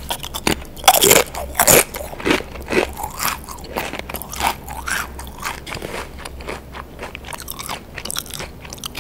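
Pringles potato crisp bitten with two loud crunches about a second in, then chewed with a run of smaller crunches that thin out toward the end.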